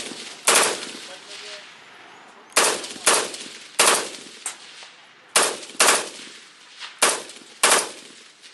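Pindad SS1 assault rifle firing 5.56×45 mm rounds in quick single shots, about nine in all, often in pairs about half a second apart, each shot trailing off in a short echo.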